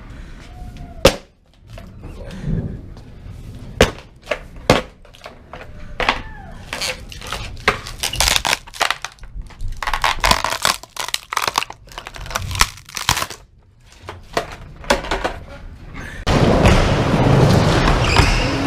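Skateboards being ridden in an indoor skatepark: a string of sharp wooden pops, clacks and board landings, then a louder steady rush of wheels near the end.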